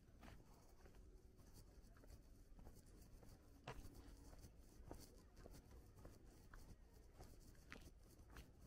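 Near silence, with faint scattered ticks and taps and a low steady hum.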